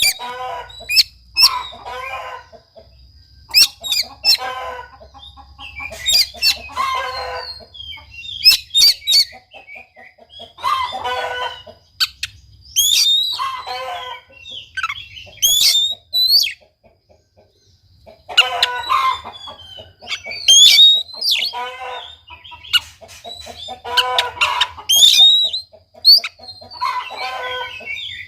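Bird calls in a string of short bursts with brief pauses. Sharp, high chirps and quick whistled sweeps, typical of an oriental magpie-robin's song, mix with lower clucking calls like a chicken's.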